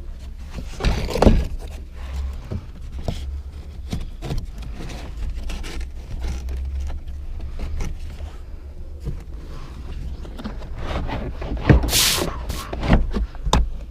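Irregular clicks, knocks and scrapes of hands handling and fitting plastic car-interior parts, over a steady low rumble. A louder, hissing scrape comes near the end.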